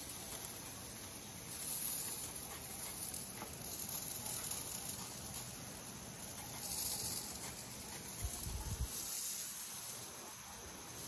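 Irrigation sprinklers spraying water: a steady soft hiss that swells twice, about five seconds apart.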